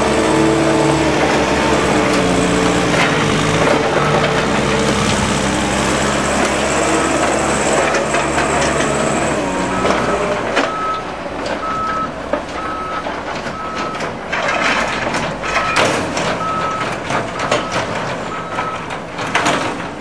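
Diesel engines of a tractor and a Manitou telehandler running hard on a silage clamp, the engine note rising and falling. From about halfway through, the telehandler's reversing alarm beeps about once a second, with knocks and rattles.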